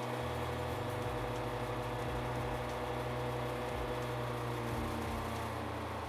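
Motor-driven 2-in-1 chaff cutter for cutting grass and breaking maize, switched on and running at steady speed with an even mechanical hum.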